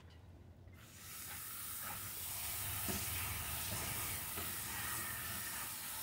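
Garden hose spray nozzle squeezed on about a second in, then a steady hiss of water spraying into a shallow dish as it is rinsed out.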